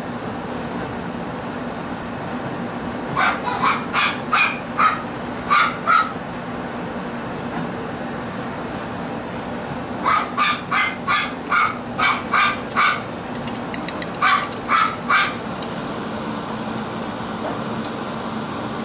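Puppy yapping in short, high-pitched barks, in three bouts: about seven yaps some three seconds in, a run of about eight around ten seconds in, and three more shortly after.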